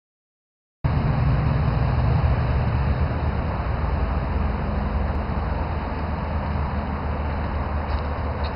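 Engine of a brush-clearing machine running steadily with a low hum, heard from about a second in.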